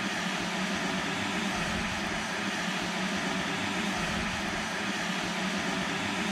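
Steady rushing of river water, an even noise that holds at one level throughout.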